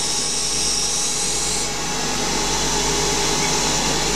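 Small CNC lathe running at 3000 rpm while a 9 mm stub drill cuts into a spinning Delrin (acetal) bush. A high cutting hiss stops after about a second and a half, leaving the steady sound of the spindle and machine running.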